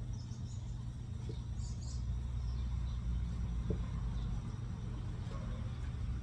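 Steady low background hum, with two faint clicks and a few faint high chirps.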